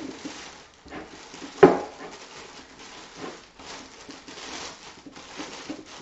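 Clear plastic packaging bag crinkling and rustling as it is worked off a liquid cooler's pump and tubing, with a sharp tap about a second and a half in.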